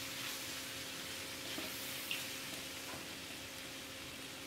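Hakka noodles with vegetables stir-frying in a hot iron kadai: a steady sizzle as the noodles are tossed and mixed with a utensil, with a light click a little after two seconds in.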